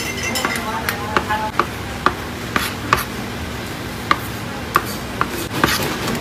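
Chef's knife halving grapes on a plastic cutting board: sharp, irregular knocks of the blade on the board, about two a second.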